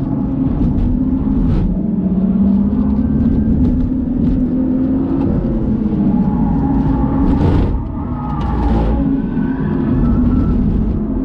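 BMW engine heard from inside the cabin at a track day, pulling up through the revs, then running off-throttle with falling revs as the car brakes for a corner. A couple of brief harsh noises come past the middle, over steady road and tyre noise.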